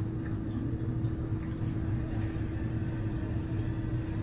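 Steady low background hum with a faint held tone, and a couple of faint light clicks of a fork against a plate.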